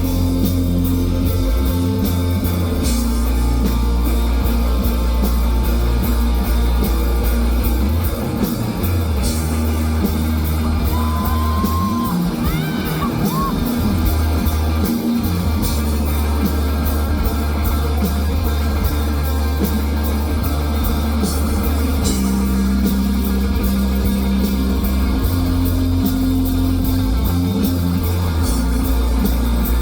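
A live rock band playing loud and steady, with electric guitar, bass and drum kit.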